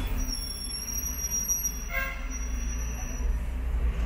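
Hong Kong tram's steel wheels squealing on the rails in a high, steady tone for about three seconds, over the low rumble of the running tram. A short pitched tone sounds about two seconds in.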